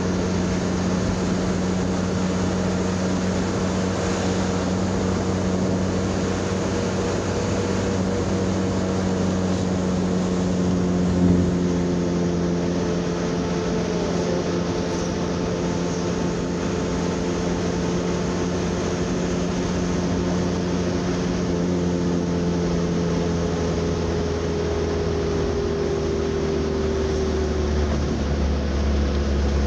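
A 3-ton truck's engine running under way, with road noise, its pitch holding steady and then sinking slowly over the second half as the truck eases off. There is one short thump about eleven seconds in.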